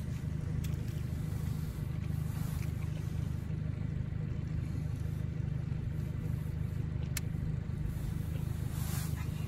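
Boat's outboard motor running steadily at low speed, a continuous low drone, with a single brief click about seven seconds in.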